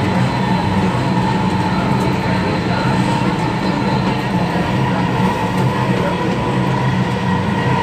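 Dubai Metro train running at speed, heard from inside the carriage: a steady rumble with a thin, constant whine.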